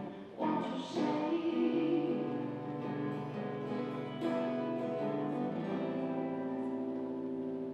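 Music with guitar. From about six seconds in, a chord is held steadily.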